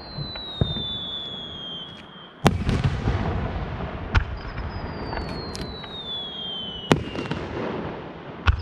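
Aerial fireworks shells bursting in a series of sharp reports, with a low rumbling echo after each; the loudest comes about two and a half seconds in. Twice a long whistle slides down in pitch over about two seconds between the bursts.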